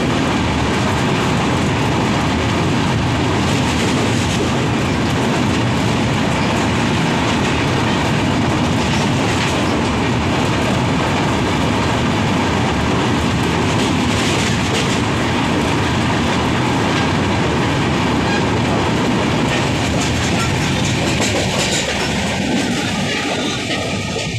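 Passenger train running over a steel truss bridge, wheels on the rails, heard loud and steady from the window of a moving coach. Near the end the train noise falls away and music comes in.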